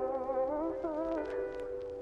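Background R&B music: a sung vocal line held and bending over sustained chords, with a light beat.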